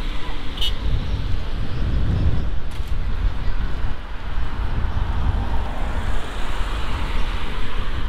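Wind buffeting the microphone over a steady rushing noise that swells near the end.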